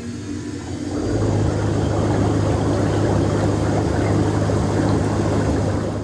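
MTI Air Massage Elite air-bath blower running at reduced intensity just after being switched on: a steady low hum under a rushing air noise, which grows louder about a second in and then holds steady.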